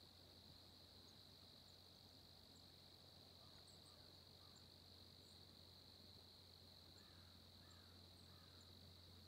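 Near silence with a faint, steady, high-pitched cricket trill, and a few faint chirps about four seconds in and again near the end.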